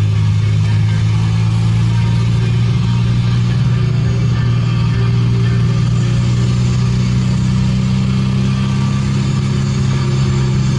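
Car cruising at a steady speed, heard from inside the cabin: a steady low engine drone over tyre and road noise.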